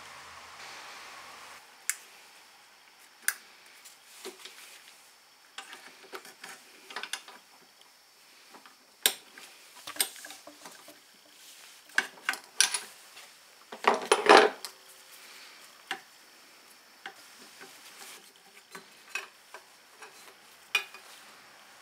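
Scattered sharp clicks and clatter of small plastic and metal parts, a fuel filter bracket and its wire clips, being worked loose by hand, with a louder rattling scrape about fourteen seconds in.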